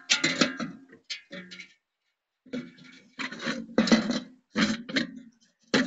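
Wire grill grates clanking and scraping against the steel pot of a homemade smoker as they are set in place: a series of short metallic knocks and rattles, with a short pause about two seconds in.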